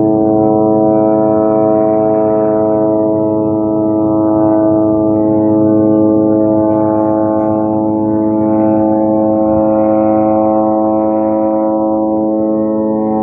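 A loud, low, horn-like tone with many overtones that starts suddenly and holds one steady pitch.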